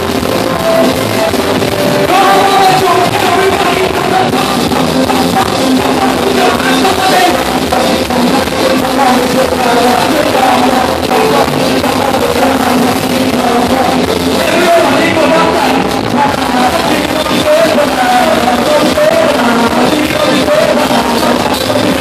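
Live chutney band playing loudly and without a break: singing over drum kit and keyboards.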